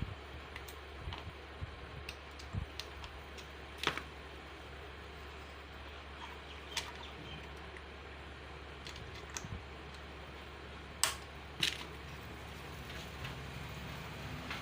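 Scattered light clicks and taps of hand tools and small bolts being handled during motorcycle engine repair, a few sharp ones standing out, over a steady low hum.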